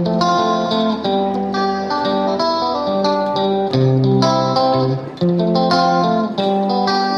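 Background music led by plucked guitar, a run of picked notes over chords.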